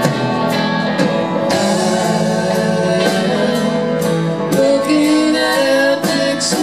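Live band music: piano, electric guitars and drum kit playing over a steady beat, with a voice singing.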